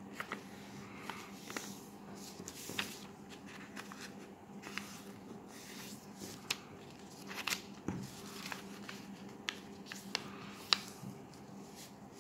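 Sheet of coloured paper being folded and creased by hand: scattered soft rustles and short crisp crackles as fingers press and slide along the folds, over a faint steady hum.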